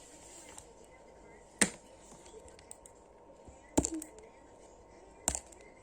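Three sharp clicks or knocks, about two seconds apart and the middle one followed by a brief rattle, from toys and their packaging being handled.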